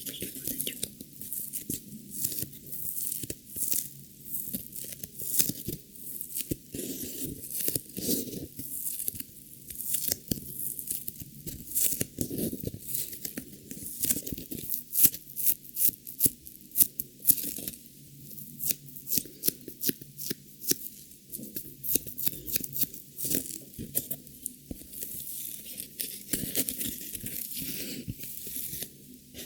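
Packaging being torn open and crinkled close to the microphone: a continuous run of sharp rips and crackles.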